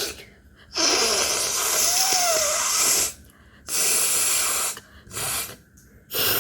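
A woman blowing her nose forcefully: one long blast of about two seconds, then a shorter one of about a second, and two quick short blows near the end.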